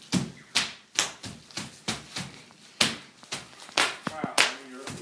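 Plastic bubble-wrap packaging being stamped on underfoot: about a dozen sharp pops in a quick, irregular run. A child's voice cries out briefly about four seconds in.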